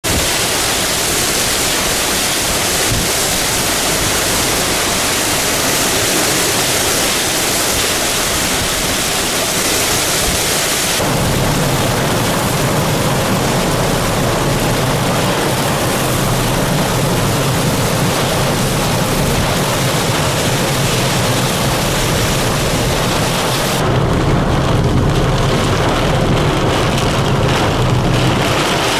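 Heavy rain pouring in a severe thunderstorm with strong wind, a steady rushing noise. The sound changes abruptly about 11 seconds in and again about 24 seconds in, turning deeper each time.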